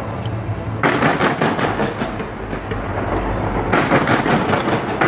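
Fireworks fired from the sides of the Taipei 101 skyscraper, going off in a rapid string of crackling bangs. One volley starts about a second in and a second about three-quarters of the way through, over a steady low rumble.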